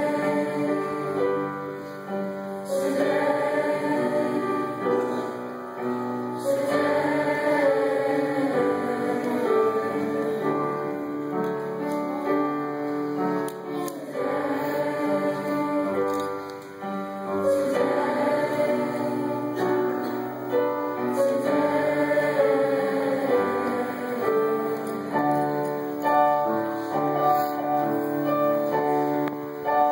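Mixed choir of high school seniors, male and female voices, singing a song together in long held phrases.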